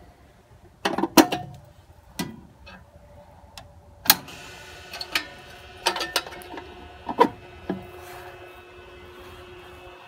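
Sharp metal clicks and clunks of a Dayton mechanical time switch box as its cover and on lever are worked, then a pool filter pump motor starting and running with a steady hum from about four seconds in.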